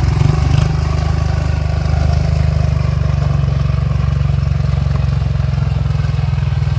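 ATV engine running steadily at low revs as the machine creeps forward through mud and water.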